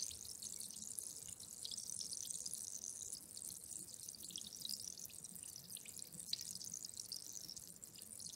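Steady fizzing of effervescent water: a fine, high hiss of many tiny bubbles crackling as they burst.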